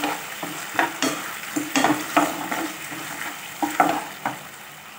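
A perforated metal spatula scraping and stirring onion, capsicum and sauces around a nonstick kadai, about two strokes a second, over a low steady sizzle of frying: the sauces being mixed into the masala.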